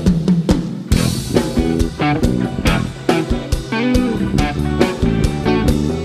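Live rock band playing an instrumental passage: electric guitar notes over a drum kit with sharp snare and kick hits.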